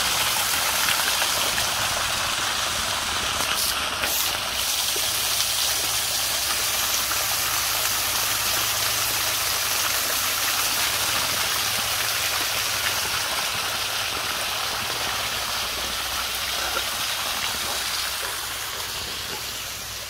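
Small waterfall splashing onto rocks and into a shallow stream, a steady rush of falling water that grows fainter near the end.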